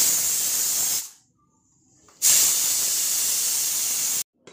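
Pressure cooker releasing its steam as the whistle weight is lifted, letting the pressure out before the lid is opened: a loud hiss for about a second, a pause of about a second, then a second hiss of about two seconds that cuts off sharply.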